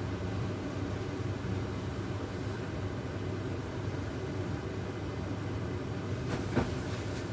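Steady low hum of a kitchen appliance with an even background hiss, and a brief knock about six and a half seconds in.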